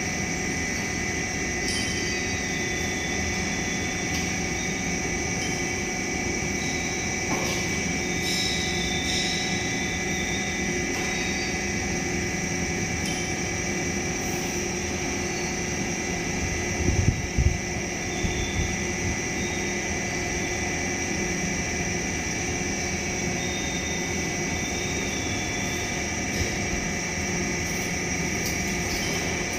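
Electric scissor lift's drive motor running steadily with a constant whine as the platform rises. A few low knocks come about halfway through.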